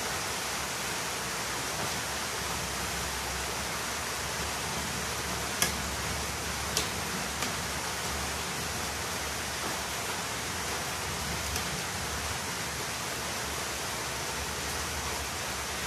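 Steady, even hissing noise throughout, with a few short clicks between about six and twelve seconds in.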